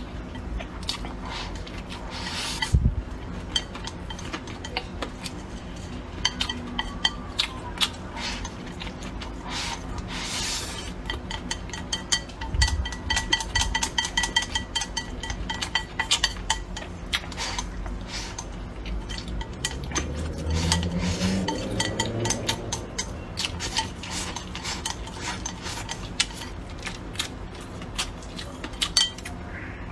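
Tableware clicking and clinking again and again as someone eats a meal, with chopsticks or a spoon tapping on bowls and dishes, over a faint steady hum.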